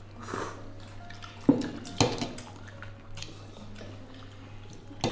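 Metal ladle scooping fish soup from a ceramic serving bowl and pouring it into a small bowl, with soft liquid sounds and two sharp clinks of the ladle against the bowl about half a second apart near the middle, and another clink at the end.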